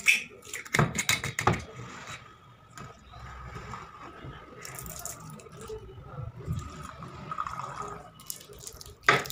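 Knocks and clinks of a glass rum bottle and a steel jigger being handled and set down on a tabletop, then rum trickling from the jigger into a cut-glass tumbler, with a sharp knock near the end.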